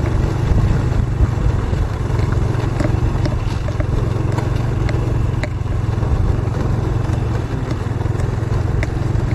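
Saleng (motorcycle-sidecar) engine running steadily while riding, with scattered light clicks and rattles.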